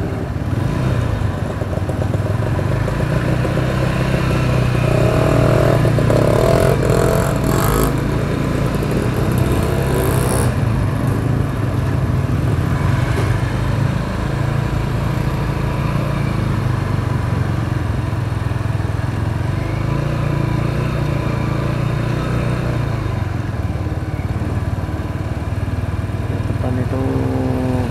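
Motorcycle engine running steadily while being ridden through traffic, its note rising and falling a little with the throttle.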